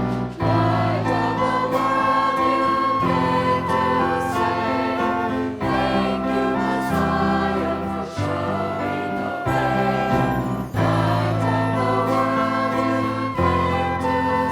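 A choir singing a worship song with instrumental accompaniment: sustained chords over a bass line that changes every second or two.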